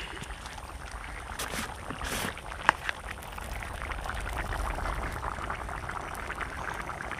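Fish curry boiling in an open clay pot, a dense crackle of small bubbling pops that takes over from about three and a half seconds in. Before that a plastic salt container is handled, with a sharp click of its lid about two and a half seconds in.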